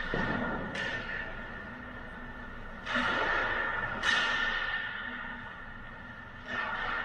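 Ice skates scraping and stopping on the rink ice, about five sharp swishes that fade out in the arena's echo, the loudest about four seconds in. Under them runs a steady hum with a high whine.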